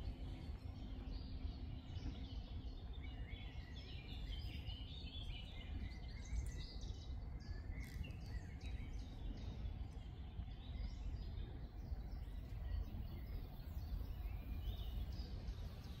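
Small birds chirping and calling on and off, busiest in the first few seconds, over a steady low outdoor rumble.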